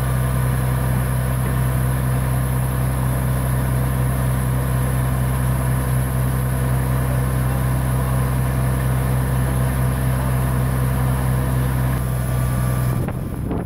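Water-well drilling rig's engine running steadily with a deep, even hum. The sound breaks off abruptly near the end.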